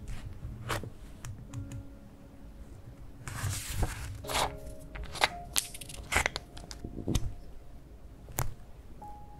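Paper notebook page rustling as it is handled and turned, about three and a half seconds in, amid light taps and clicks of small rubber stamps being picked up and pressed onto the page. Soft sustained background music underneath.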